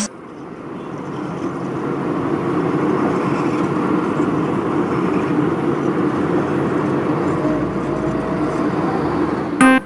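Cold planer (asphalt milling machine) at work on a street, a steady heavy machine noise that fades in over the first couple of seconds and then holds level.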